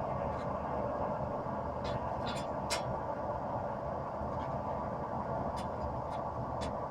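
Gas forge burner running steadily, with a few light, scattered taps over it.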